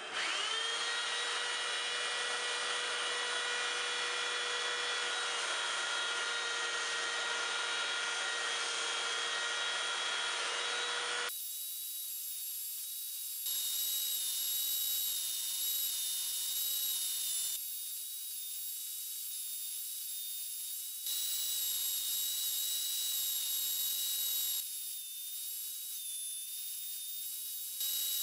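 A belt sander, mounted upside down as a bench sander, starts up with a rising whine and then runs steadily while the stepped outside of a pine bowl is held against the belt and sanded smooth. Its tone and level change abruptly about eleven seconds in and several times after.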